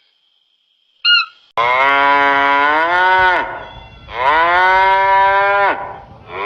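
A short high call about a second in, then cattle mooing: two long moos, each rising slightly in pitch, with a third starting near the end.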